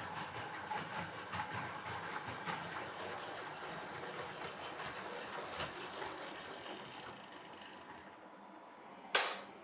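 Vintage Tri-ang 00-gauge model trains running on the track: a faint steady motor whine with irregular clicking of wheels on the rails, fading over the last couple of seconds. A single sharp click, the loudest sound, comes just before the end.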